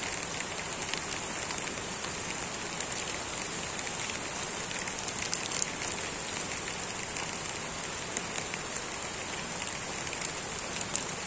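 Steady rain falling, with many sharp drop clicks from raindrops striking the plastic raincoat and bags close by.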